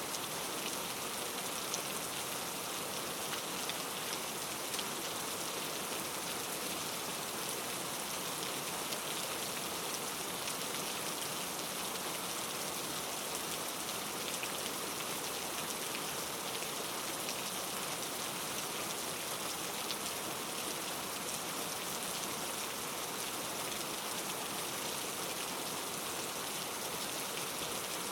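Steady rain falling: an even hiss of many drops, with faint scattered ticks of single drops.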